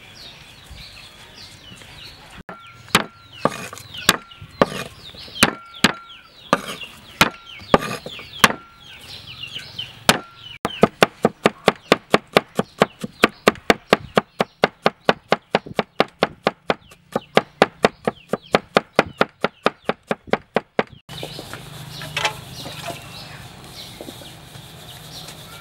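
Cleaver chopping garlic on a wooden chopping board: about a dozen separate strikes, each with a short ring, then rapid even chopping at about four strokes a second for some ten seconds, stopping suddenly. Chickens cluck in the background at the start and again after the chopping stops.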